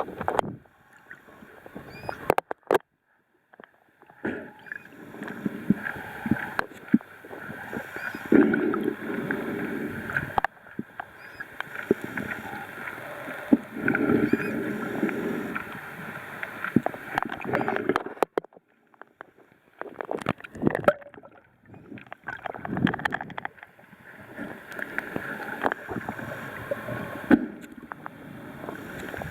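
Water sloshing and gurgling around a kayak, coming in uneven bursts with short pauses between them.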